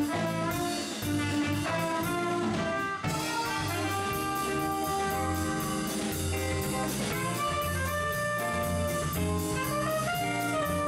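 Small jazz band playing: horns holding a melody over bass and drums, with a steady cymbal pattern and a short break about three seconds in.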